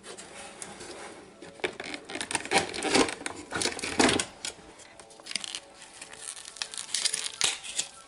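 Toy packaging being torn open and crinkled by hand, in irregular crackling bursts that are loudest a few seconds in.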